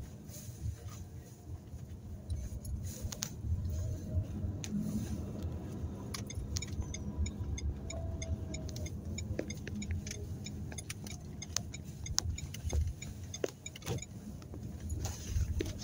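Renault Kadjar heard from inside the cabin while driving slowly: a steady low engine and road rumble with occasional small knocks and rattles. For a few seconds midway, before a turn, the turn-signal indicator ticks at about three clicks a second.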